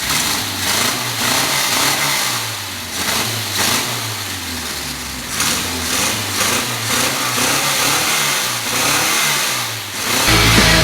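Ford Escort's 2-litre Pinto four-cylinder engine running and being revved again and again, its pitch rising and falling with each blip of the throttle.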